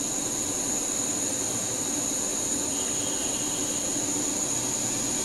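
Danfoss VLT 2800 variable-frequency drive running with its cooling fan on: a steady hum and hiss with a high, steady whine, while its output frequency is stepped up to a connected motor. A faint extra tone joins about halfway through.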